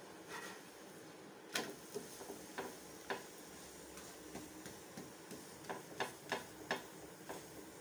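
Wooden spatula tapping and pressing on a tawa while a chapati is turned and cooked: about ten sharp, irregular taps, clustered near the end, over a steady faint hiss.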